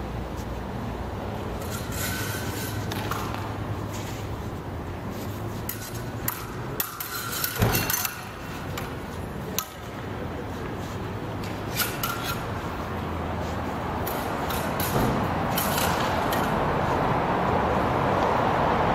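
Rapier and dagger blades meeting in sparring: scattered sharp clicks and clinks, clustered about six to eight seconds in, over a steady background of traffic that grows louder near the end.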